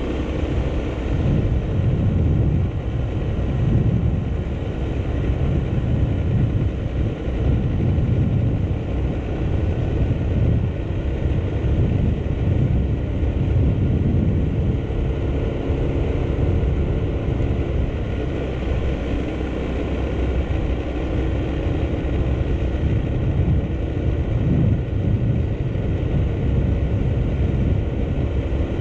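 Motorcycle engine running steadily under way, mixed with a gusty low rumble of wind on the microphone.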